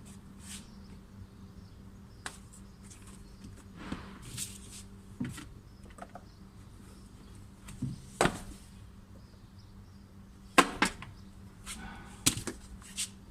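Irregular clicks, taps and knocks of hands and tools working on a car door's interior while it is being taken apart, with a few sharper knocks in the second half.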